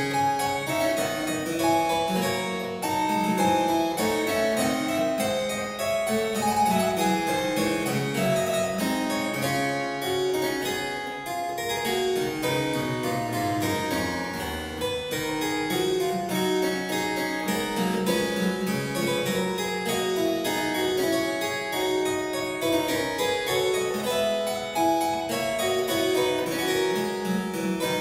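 Solo harpsichord playing a piece in a steady stream of quick notes, with several lines of notes sounding at once.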